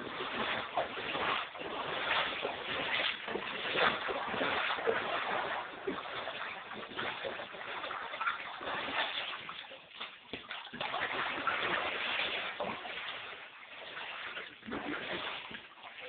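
Water sloshing and splashing irregularly as someone wades through standing flood water on a basement floor.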